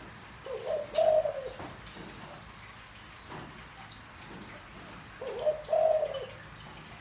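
Spotted dove cooing in a deep voice: two coos about four and a half seconds apart, each a short lead-in note running into a longer held coo.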